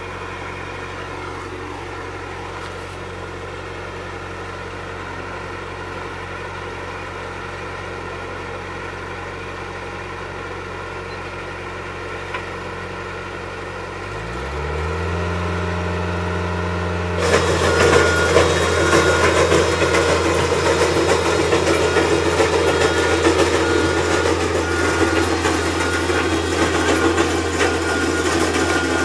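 Skid steer's engine idling steadily, then revving up about halfway through. A few seconds later the rock hound attachment's drum starts raking, adding a loud, dense noise over the engine.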